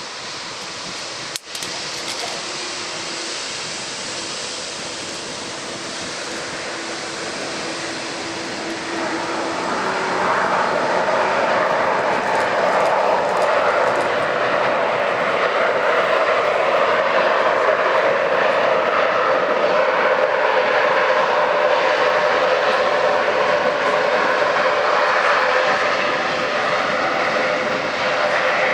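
Aircraft engines running: a steady rush of engine noise with a faint hum in it, growing louder about nine seconds in and staying loud. A single sharp click about a second and a half in.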